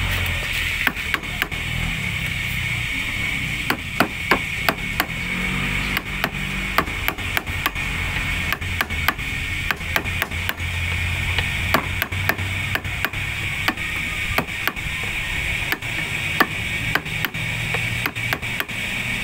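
A chisel being tapped into the end of a turned wooden baluster, cutting a notch in its top: irregular sharp taps, sometimes two or three in quick succession.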